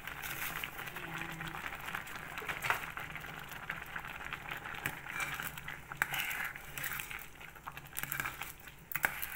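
Pot of sweet potato, corn and sago pearls at a rolling boil, a continuous bubbling and crackling, over a low steady hum.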